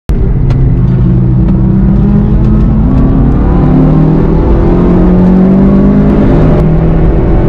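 Inside the cabin of a VW Golf 7.5 GTI TCR, its turbocharged 2.0-litre four-cylinder engine running hard under acceleration, the engine note climbing in pitch and dropping back once near the end.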